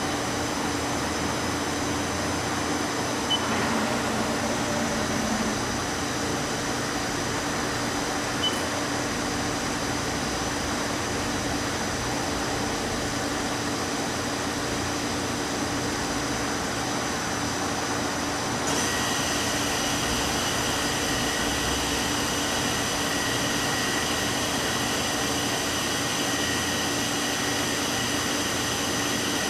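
Mori Seiki MV-Junior vertical machining center running under power: a steady mechanical hum carrying a few fixed whining tones, with two small clicks early on. About two-thirds of the way through, a higher whine joins in and holds.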